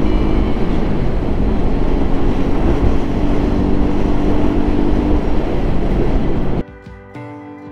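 Motorcycle running at road speed with heavy wind noise on the microphone. About six and a half seconds in it cuts off abruptly and quieter guitar music takes over.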